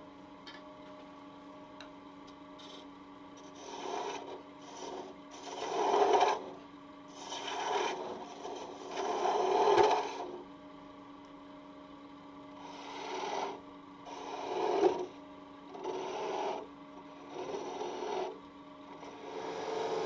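Wood lathe running with a steady hum while a skew chisel is brought against the spinning workpiece in about nine short cutting passes, each a brief scraping hiss. The passes begin about four seconds in, with a lull in the middle.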